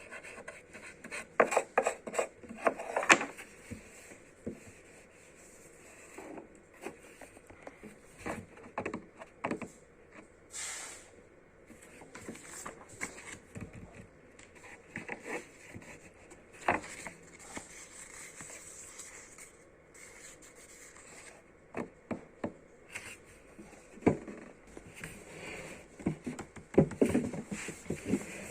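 Hands handling sticker sheets and their packaging on a surface: irregular rubbing, scraping and light taps, busiest in the first few seconds and again near the end.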